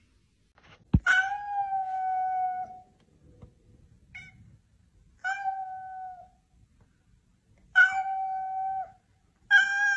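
Cat yowling at another cat in a standoff: four long, level-pitched wails of about a second or more each, with a short one between them, after a sharp click about a second in.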